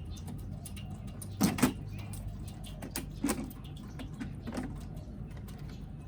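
An LED display panel's casing being handled and opened for a check after a water splash test: a few knocks and clicks, the loudest a double knock about one and a half seconds in, over a steady low hum.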